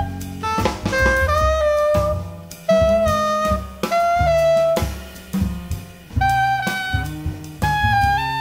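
Jazz quartet playing a milonga-flavoured tune: a tenor saxophone plays a line of held notes over plucked acoustic bass and drum kit.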